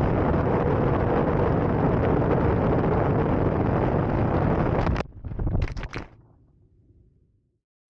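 Loud, steady rushing wind noise on the microphone that cuts off sharply about five seconds in, followed by a few short bursts of noise and then a fade to near silence.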